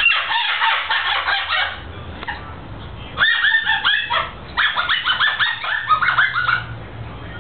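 Cockatoo imitating a squeaky toy: quick runs of high, rapid squeaks in three bouts, one at the start, one about three seconds in, and a longer one from about four and a half seconds.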